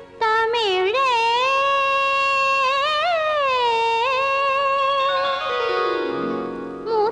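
Female voice singing a Tamil film song, holding long, ornamented notes that waver and bend in pitch. About five seconds in, the voice drops out and a lower instrumental line takes over. The singing comes back near the end.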